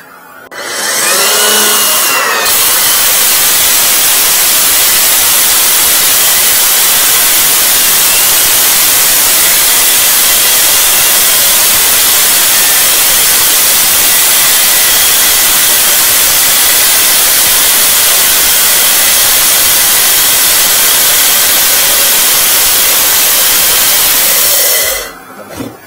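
Electric core drill with a 125 mm core bit spinning up about a second in, then running steadily as it bores into the wall. A vacuum nozzle held at the bit runs with it to draw off the dust. Both cut off just before the end.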